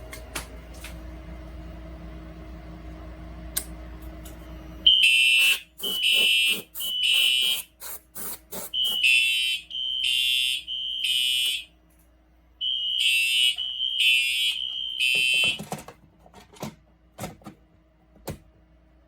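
Fire alarm horn sounding the temporal-3 evacuation pattern, starting about five seconds in: three short pulses of a harsh electronic tone, a pause, three times over, then it stops. Sharp clicks are scattered among the pulses and after it stops.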